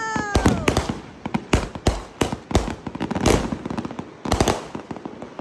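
Fireworks going off: a dense run of sharp bangs and crackles, with louder bursts about three seconds in and again about four and a half seconds in.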